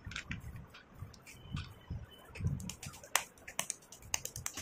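Hand scraping and squeezing damp red clay paste mixed with crushed slate pencil on a steel plate: soft low squishing with many sharp, gritty clicks and crackles scattered through it, thickest in the second half.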